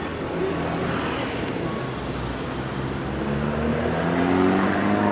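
Urban street traffic noise, with a motor vehicle's engine rising in pitch as it speeds up and growing louder toward the end.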